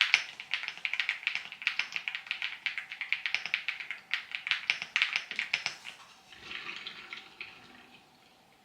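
Typing on a computer keyboard: quick, irregular key clicks for about six seconds, then softer and fading out.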